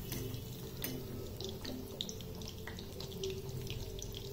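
Chicken pieces deep-frying in hot oil in a kadai: a steady bubbling sizzle with scattered pops and crackles, the chicken fried to golden brown and ready to come out.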